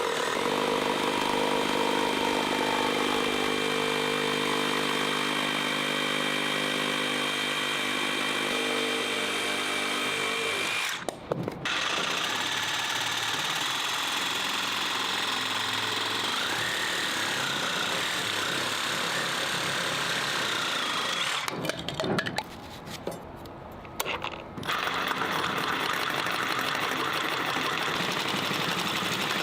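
Makita JR001G 40V brushless reciprocating saw running with a steady motor whine. It cuts out briefly about eleven seconds in, drops away for about three seconds past the twenty-second mark, then runs again.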